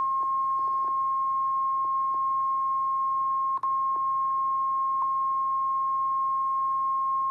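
NOAA Weather Radio 1050 Hz warning alarm tone: one loud, steady, pure beep held throughout, with a brief dropout about three and a half seconds in. It signals that a warning, here a tornado warning, is about to be read.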